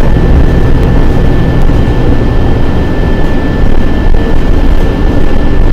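Transit bus engine running, heard from inside the passenger cabin: a loud, steady low rumble with a thin, steady whine above it.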